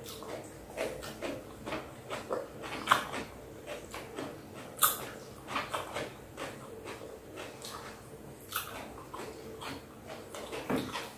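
Close-miked chewing and wet mouth smacks of someone eating purple sweet potato: irregular soft clicks throughout, with two sharper smacks about three and five seconds in.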